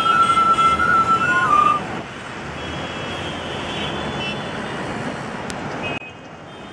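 Street traffic noise, with a thin high tone held for about a second and a half that then steps up and down in pitch over the first two seconds, then the traffic continues more steadily and quieter until it drops away sharply near the end.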